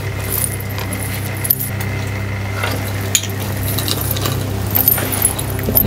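Light metallic clinking of a pendant chain and beads being handled, over a steady low hum.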